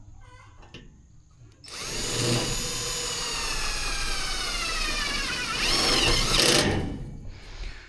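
Power drill/driver running for about five seconds, its whine slowly dropping in pitch, rising briefly near the end, then stopping. A few light knocks come before it.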